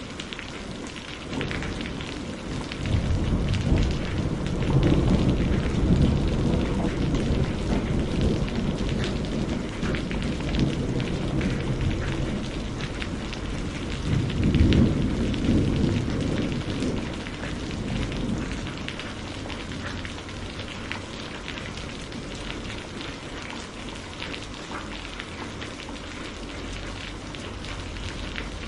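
Steady rain with a thunderstorm: a long low rumble of thunder builds about three seconds in and slowly fades, and a second rumble swells about halfway through, over a constant patter of rain.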